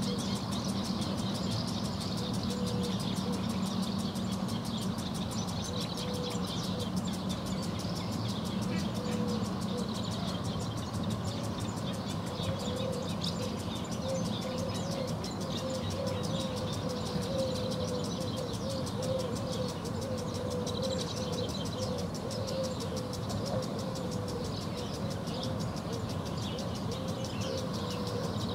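Swallows and house martins twittering over a pond, against a steady low hum of distant traffic. A wavering mid-pitched drone sounds through the middle and later part.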